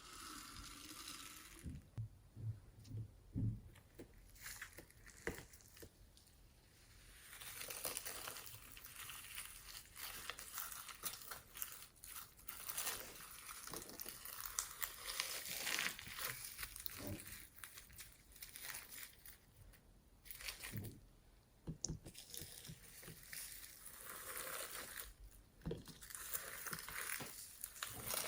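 Slime being squished and stretched by hand, making a wet crackling with many small popping clicks. There are a few soft thumps in the first few seconds.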